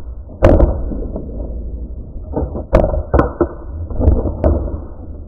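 Airsoft rifle shots: about five sharp cracks spread over a few seconds, the strongest about half a second in and about three seconds in. Between them runs a muffled, low rumble of wind and gear on the helmet-mounted camera.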